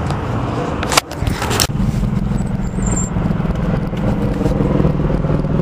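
Helicopter flying overhead: a steady low rotor and engine rumble. About a second in there is a sharp click, then a short rush of noise.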